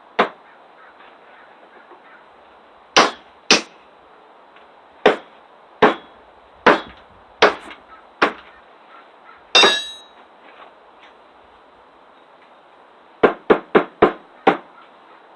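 Small survival multi-tool hatchet chopping into wood: about nine single sharp strikes spaced roughly a second apart, one with a brief ringing note, then a quick run of five lighter strikes near the end.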